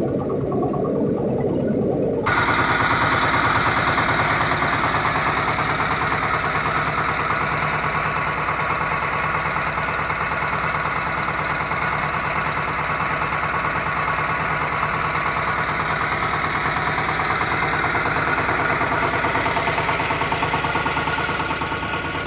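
A vehicle's engine and drivetrain running steadily with a fast, even rattling pulse; the gearbox is one the owner says makes strange noises. About two seconds in, the sound changes abruptly and becomes louder and brighter.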